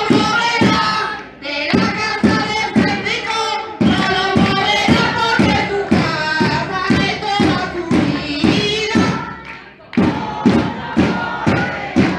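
Crowd of protesters chanting a slogan in unison over a steady beat of thumps, pausing briefly twice between chants.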